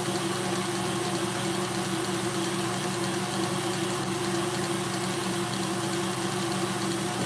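Tilt-head stand mixer running at high speed with its wire whisk beating Italian meringue in a steel bowl: a steady motor hum with the whisk whirring through the meringue.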